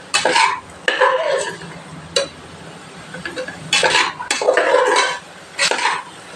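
Metal spatula scraping and clinking against the sides and bottom of an aluminium pressure cooker as chopped vegetables are stirred and sautéed in oil, in irregular strokes of about a second with short pauses between them.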